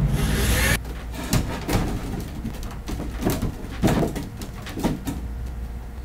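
A rushing hiss that cuts off just under a second in, then scattered knocks and clunks of shelf panels being handled and set into place.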